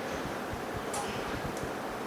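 A couple of light clicks from small parts being handled and fitted into a plastic alignment mold, over a steady background hiss.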